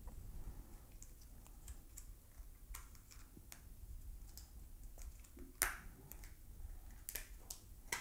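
Light plastic clicks and snaps as the clamshell package of a laptop RAM module is prised open by hand, with a sharp snap a little past halfway and a few more near the end.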